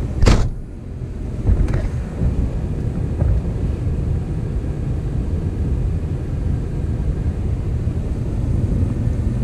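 Steady low rumble of a vehicle driving slowly, heard from inside the cab, with a sharp knock just after the start and a fainter knock about a second and a half later.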